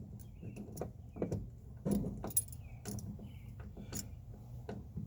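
Small metal tools and parts clinking and tapping as they are handled: a scatter of short, sharp clicks at irregular intervals, about two a second at most.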